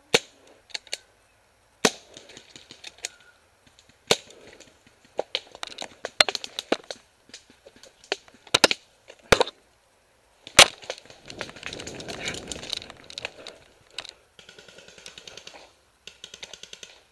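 CCI Phantom pump-action paintball marker firing during play: a series of sharp shots and clacks at irregular intervals, with the loudest about ten and a half seconds in. Between them come softer stretches of rustling as the player moves through grass.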